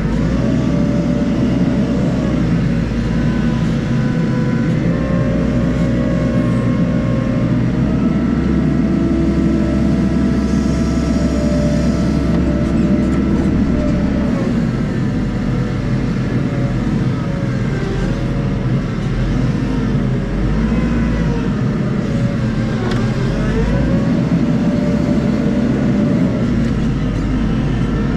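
Hitachi 120 wheel loader's diesel engine running hard, heard from the cab, its pitch rising and falling again and again as the machine drives and works the bucket.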